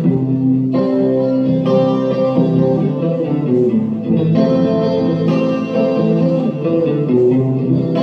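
Live band playing an instrumental passage: electric guitars and bass guitars holding chords that change every second or so.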